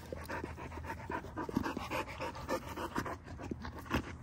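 American bully dogs panting up close, in quick, uneven breaths, with one sharper click near the end.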